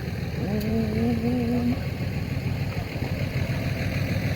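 A car engine idling with a steady low rumble. A brief wavering hum starts about half a second in and lasts just over a second.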